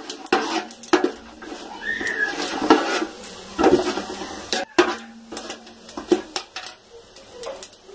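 A metal spatula clinking and scraping against a metal cooking pot, in irregular strokes, as whole spices are stirred in oil and ghee.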